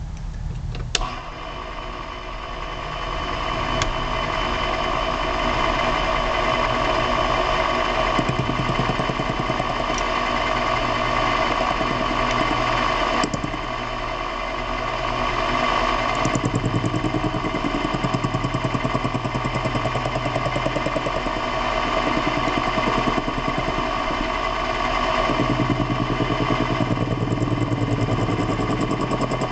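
A machine-tool motor starts with a click about a second in and then runs steadily with an even whine. A lower hum swells and fades several times.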